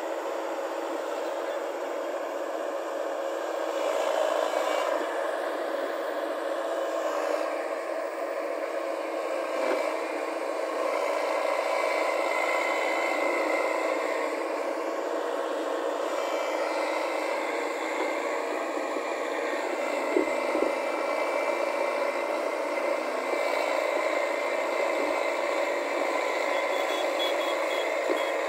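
JCB JS140 tracked excavator running steadily as it digs and lifts mud: diesel engine under load with hydraulic whir. It gets louder a few seconds in, and there are a couple of short knocks about two-thirds of the way through.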